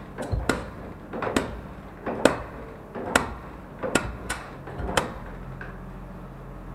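A Royal Enfield Classic 350 engine being tried on the starter gives about eight sharp knocking clacks over five seconds, roughly one a second, and then stops. This is the 'khad khad' noise the owner hears on every start attempt after something broke inside the engine.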